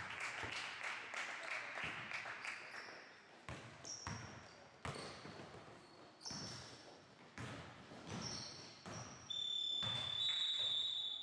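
A basketball is dribbled on a hardwood gym floor, with sharp bounces and short shoe squeaks from players running. About nine seconds in, a game buzzer sounds a steady high tone that holds to the end, signalling the end of the game.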